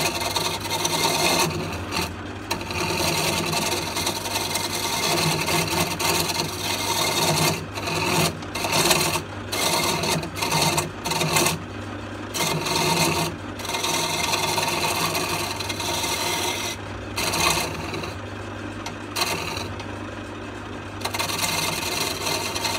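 Roughing gouge cutting a wooden blank spinning on a wood lathe at low speed, about 600 RPM: a rasping, scraping cut that swells and eases as the tool bites. A steady low hum from the running lathe sits underneath.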